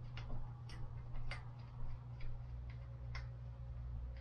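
Light metal clicks and ticks, about five at uneven intervals, as the bicycle's front wheel is fitted into the fork, over a steady low hum.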